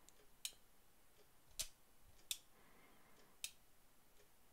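Four faint, sharp metallic clicks, spaced unevenly over a few seconds, from a Smith & Wesson Mountain Gun revolver's action as the hammer is worked in single action and the cylinder stop snaps into its notch. This is a check of the revolver's timing, which here is virtually perfect.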